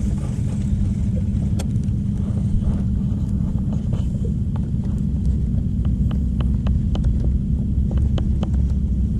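Bow-mounted electric trolling motor running with a steady low hum, with scattered light clicks over it.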